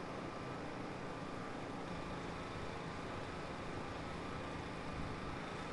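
Steady, faint outdoor background noise: an even hiss with a low rumble and no distinct events.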